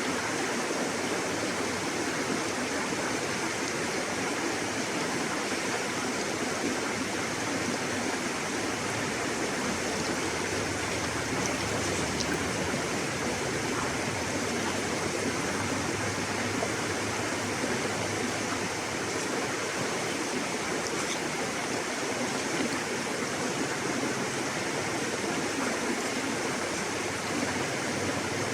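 River water flowing over rocks, a steady rushing and gurgling with no change in level.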